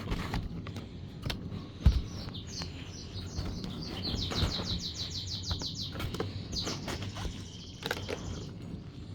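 Scattered knocks and clicks from handling, with one sharp thump about two seconds in. Over them a bird chirps in a high, rapid trill from about two and a half seconds until near the end.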